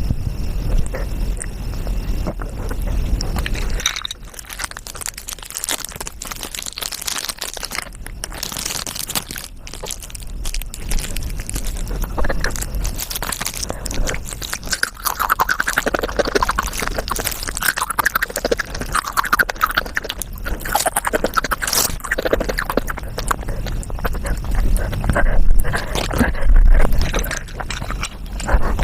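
Sped-up mukbang eating sounds: rapid crunching, chewing and crackling played back at about five times normal speed.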